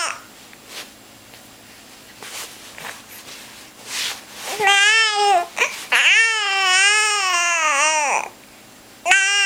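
A baby making drawn-out, wavering cries and babbling sounds. After a quiet few seconds come three long vocal sounds: a short one, a longer one of about two seconds, and a third near the end.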